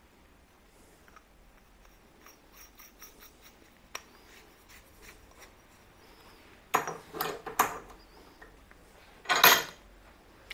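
Metal bearing-tool parts being handled on a workbench: faint ticks, then a short run of clinks about seven seconds in and a louder metal clatter about nine and a half seconds in.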